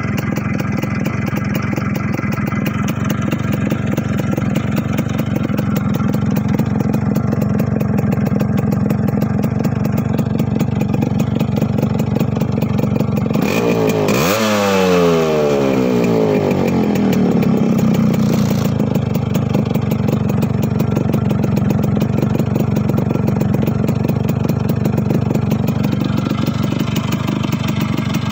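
1993 Yamaha RX 100's two-stroke single-cylinder engine idling steadily through its silencer. About halfway through it is revved once: the pitch jumps up quickly and then falls back to idle over a few seconds.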